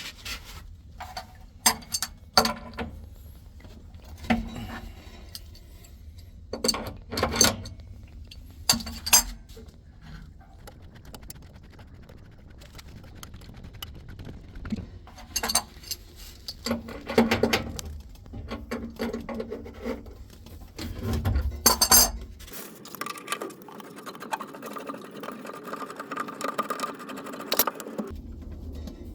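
Scattered metallic clinks and knocks of hand tools on threaded pipe fittings, as the fittings on top of a water heater are worked loose and taken off. Near the end a steadier noise runs for several seconds.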